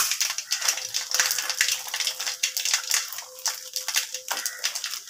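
Mustard seeds and urad dal crackling and popping in hot oil in a steel kadai as the tempering fries: a dense, uneven run of sharp pops. A faint steady hum sits underneath from about a second in.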